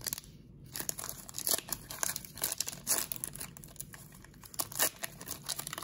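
Crinkling of a plastic trading-card pack wrapper being handled, an irregular run of crackles.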